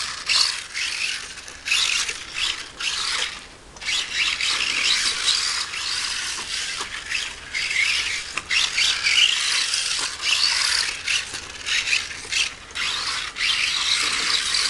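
Losi Micro Rally 1/24 RC car, converted to a buggy, running on its small electric motor and drivetrain with a high, rasping whir that cuts out briefly a few times and picks up again.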